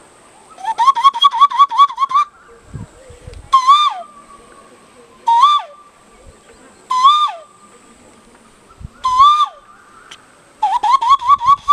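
Whistled bird-like calls. First a quick run of about eight rising notes, then four single calls spaced a couple of seconds apart, each rising and then dropping sharply, and another quick run near the end.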